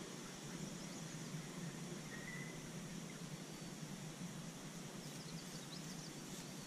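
Steady outdoor background hiss with a few faint, short high bird chirps, a brief one about two seconds in and a small cluster about five seconds in.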